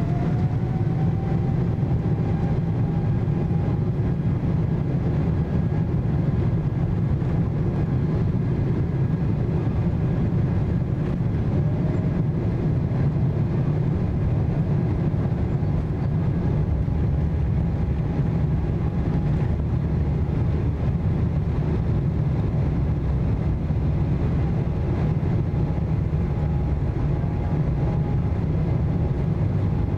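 Cabin noise inside a Boeing 777-200 on the ground: a steady low rumble with a faint engine whine above it, the whine rising briefly in pitch just after the start.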